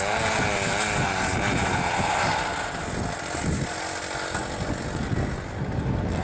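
Engine of a rail-welding machine running steadily, its pitch wavering up and down. It grows fainter from a little before halfway to near the end, then picks up again.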